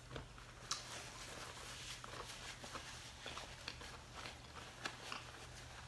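Faint rustling of a paper napkin as greasy hands are wiped, with a few soft scattered ticks and taps.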